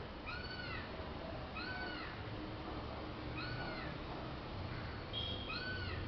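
An animal gives four short, high calls, each rising and then falling in pitch, spaced one to two seconds apart. A brief steady whistle comes just before the last call.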